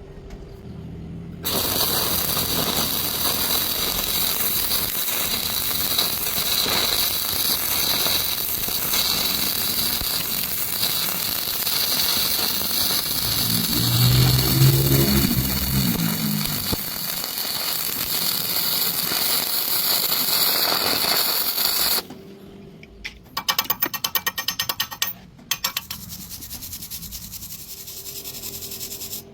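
Welding arc crackling and hissing steadily for about twenty seconds, starting and stopping abruptly, with a low tone swelling and fading in the middle. After it stops, a short run of rapid clicking.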